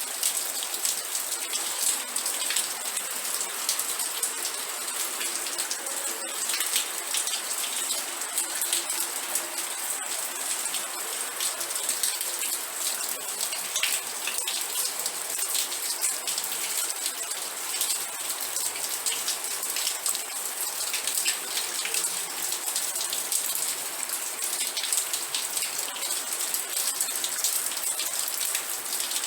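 Steady rain falling, with dense patter of drops hitting a surface and no change in intensity.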